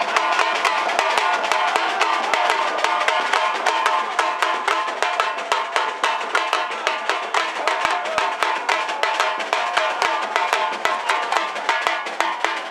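Supporters' drum band beating a fast, steady rhythm, with a small Izzo snare drum struck with wooden sticks among the drums.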